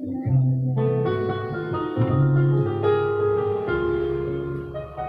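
Live band music: keyboard-like held melody notes over a bass line, with a brief break near the end before the bass comes back in.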